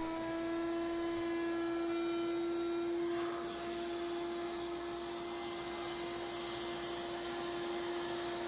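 Table-mounted router spinning a core box bit at full speed, a steady high whine. For roughly the first three seconds the bit routes a juice groove into a hardwood cutting board; after that it spins free as the board is lifted away.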